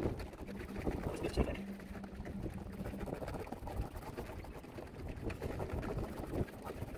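Wind buffeting the microphone in a low rumble, with a few light knocks and taps from a hand tool worked around a cockpit drain fitting.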